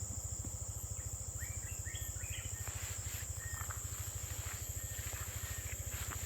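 Insects droning steadily at a high pitch, with a bird giving a short run of stepped whistled notes about one and a half seconds in, over a low pulsing hum.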